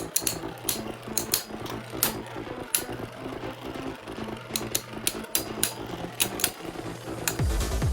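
Two spinning 3D-printed beyblades whirring in a plastic stadium, with many sharp irregular clacks as one top repeatedly hammers into the other. Music with a heavy bass comes in near the end.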